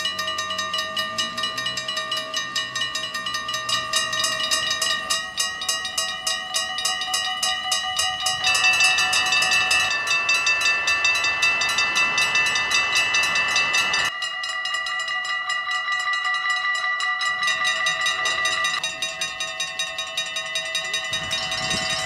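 Mechanical level-crossing bells at Dutch railway crossings ringing, a rapid, even run of hammer strikes with the bells' ringing tones held over them. The tone mix changes abruptly a few times as one crossing's bell gives way to another's.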